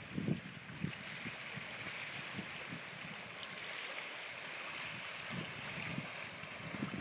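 Wind buffeting the microphone in irregular low thumps over a steady hiss of wind and choppy water.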